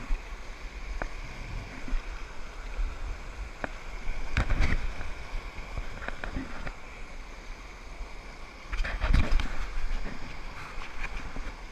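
Whitewater rushing down a sloping concrete weir spillway, heard close to the water, with a few sharp knocks and splashes; the loudest come about four and a half and about nine seconds in.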